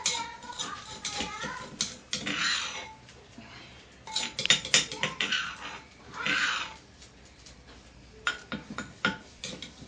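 Clinks of dishes and utensils, with short high-pitched gliding calls in the first second or so.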